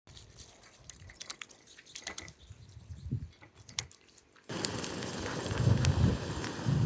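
Wet, sticky squelches and small drips and clicks as sauce-covered hands pull apart a barbecued pork head. From about halfway, this gives way suddenly to a louder, steady noise of a wood fire burning, with a few crackles and a low rumble.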